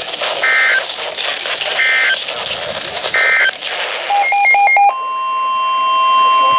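Emergency Alert System data tones between two severe thunderstorm warnings: three short screeching data bursts about a second apart over radio hiss, the end-of-message signal. A quick run of alternating beeps follows, and about five seconds in a steady alert tone begins.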